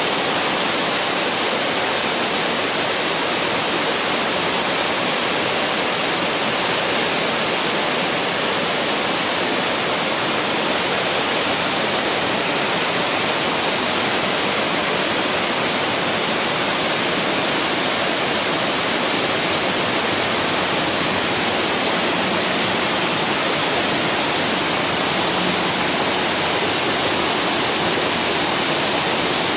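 Ontaki waterfall pouring steadily: a constant, even rush of falling water.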